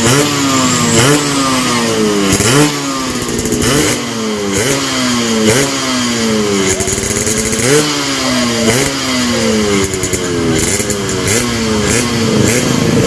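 Yamaha RX-King two-stroke motorcycle engine revved again and again through its stock exhaust, which has been gutted for a crisp, snarling 'garing ngorok' note. The throttle is blipped about once a second, each rev rising sharply and falling back more slowly.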